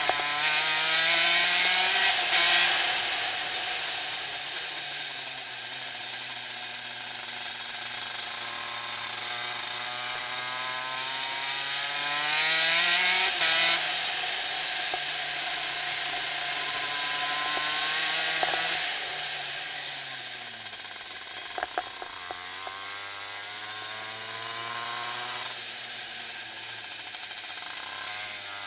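Gearbox kart engine heard onboard, its revs climbing and falling as the kart accelerates and slows. The pitch drops sharply about two seconds in and again about halfway through. After a gradual fall about two-thirds of the way in, it settles at a low steady pitch, with a few sharp clicks soon after.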